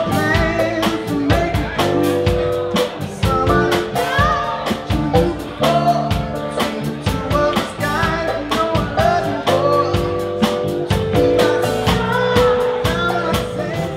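Band music: a singer over drums, guitar and keyboard, with a steady beat.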